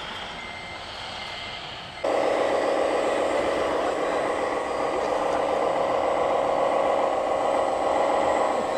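Radio-controlled scale Komatsu wheel loader working a dirt pile: a dense, steady mechanical running sound that starts suddenly about two seconds in and continues at a fairly even level.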